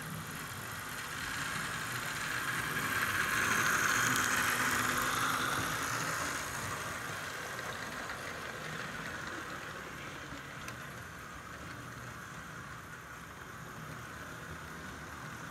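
HO-scale Athearn Blue Box diesel locomotives and freight cars running on track: a steady motor whine and the rumble of wheels on the rails. It grows louder about three to five seconds in as the train passes close by, then eases off.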